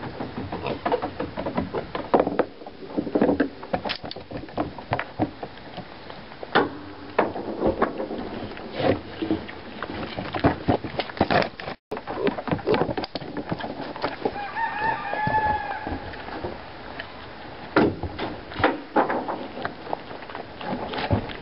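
Irregular sharp clicks and knocks from a black pig moving about on a wooden deck with an antler in its mouth, its hooves and the antler striking the boards. A short call with a rising and falling pitch comes about 14 seconds in.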